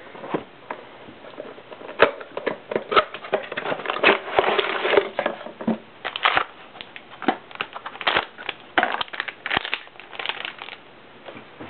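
Close, off-screen handling during a laptop hard drive swap: a scattered run of sharp clicks and knocks, with a denser stretch of crinkling about four to five seconds in.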